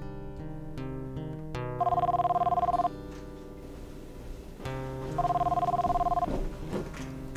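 A telephone ringing twice, each ring about a second long with a fast trill, over background score music with sustained notes.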